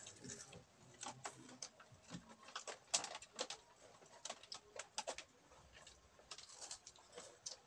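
Faint chewing and crunching of snack food, with scattered small sharp clicks and mouth sounds.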